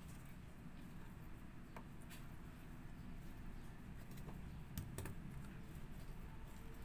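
Faint hand-handling sounds as garlic cloves and onion pieces are picked up from a wooden cutting board and pushed into a raw whole chicken's cavity: a few light taps and clicks, the sharpest about five seconds in, over a low steady hum.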